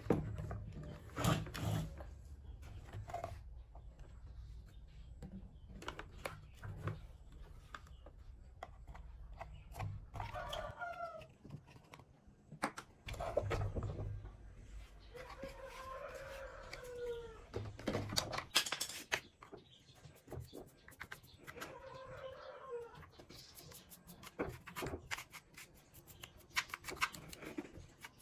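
Scattered clicks, taps and knocks of an old plastic box fan being handled and taken apart, its fan blade pulled off the motor shaft. Three drawn-out animal calls, each a second or two long, sound in the background.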